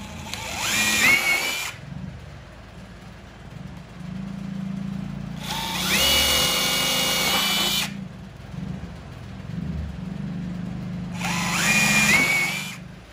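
Cordless drill boring holes through a quad's plastic fender: three runs, each spinning up in a rising whine that then holds steady. The middle run is the longest.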